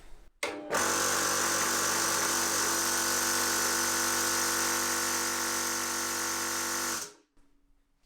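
HPA high-pressure air compressor pump starting up with a short stutter, running steadily with a motor hum and a high whine, then cutting off suddenly about a second before the end.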